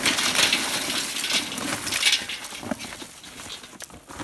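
Mesquite lump charcoal pouring from a paper bag into a metal charcoal basket: a dense clatter of small pieces tumbling onto the charcoal and metal. It thins out to a few separate clinks after about two seconds.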